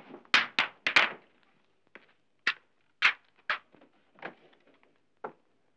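A series of about ten short, sharp knocks at uneven spacing, a few in quick succession near the start, as a man hidden inside a wooden barrel moves across the floor.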